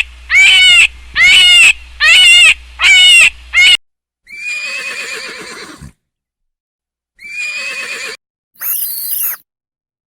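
Horse neighing and whinnying, several calls in a row. The first five are short and loud, about one every 0.8 s; after them come longer, quieter whinnies with a falling, quavering tail.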